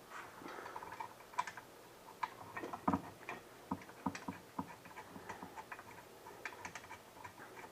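Light, irregular metallic clicks and taps as a leg screw is fitted and turned into a metal dining chair frame with hand tools.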